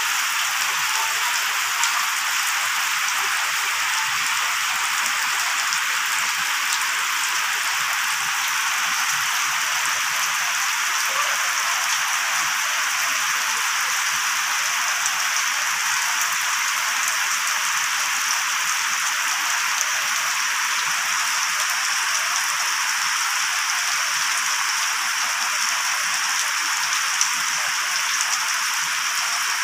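Steady rain falling on wet ground and puddles: an even hiss of many drops that keeps up without a break.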